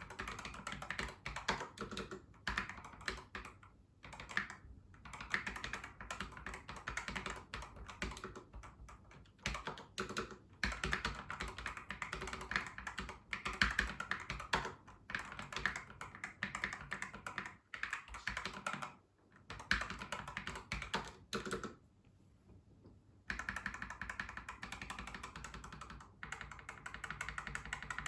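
Low-profile ZENAIM gaming keyboard being typed on: fast, dense runs of key clicks with a few short pauses, the longest about two-thirds of the way in.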